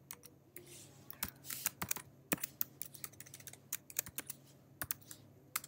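Computer keyboard keys clicking as a word is typed slowly, a few keystrokes a second with uneven gaps.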